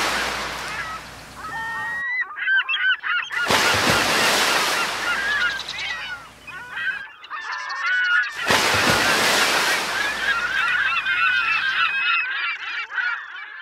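Surf breaking on a beach, with a wave washing in and fading at the start and two more about three and eight seconds in, while a flock of birds keeps up honking calls over and between them.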